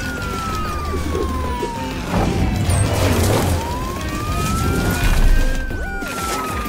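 Emergency-vehicle siren wailing in a slow glide: falling, rising again and falling, over background music.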